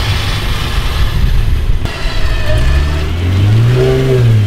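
Jeep Wrangler Rubicon engine under load in deep mud, with a low rumble at first. From about halfway in the revs rise, dip briefly near the end, then climb again.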